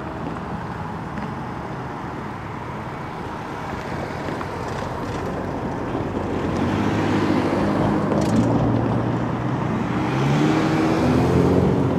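Steady vehicle rumble of engine and rolling noise that grows louder over the second half, with an engine hum coming in about halfway through.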